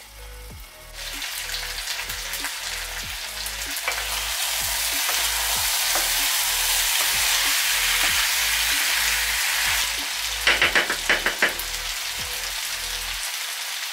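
Marinated chicken pieces sizzling and frying in a hot pan of curry oil, stirred with a wooden spoon. The sizzle comes in about a second in and stays strong, with a few quick spoon strokes against the pan near the end.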